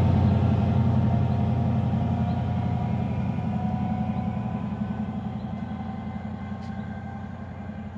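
Diesel engines of a CrossCountry HST's Class 43 power cars (MTU 16V4000) running as the train moves away: a steady low engine note with a faint whine, fading gradually.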